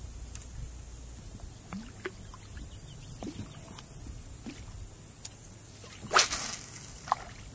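A topwater bass lure being worked across calm water, with one loud, short splash about six seconds in.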